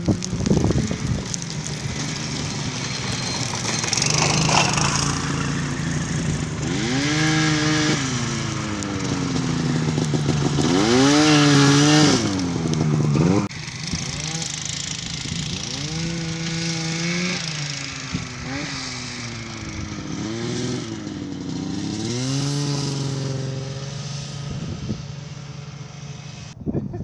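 Small go-kart engine revving up and falling back over and over as the kart drives across snow, the loudest run of revs coming near the middle.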